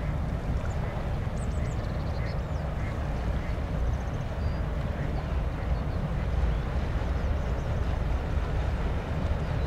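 Steady low rumble of a high-speed ferry's engines as it approaches along the canal. Ducks quack and small birds chirp briefly during the first half.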